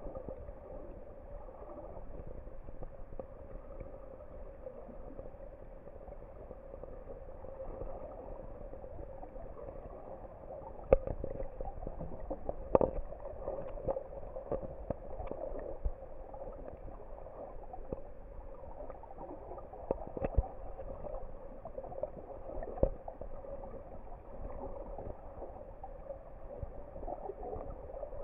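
Muffled underwater ambience picked up by a submerged camera: a steady low hum with scattered sharp clicks and knocks, the loudest a little after ten seconds in.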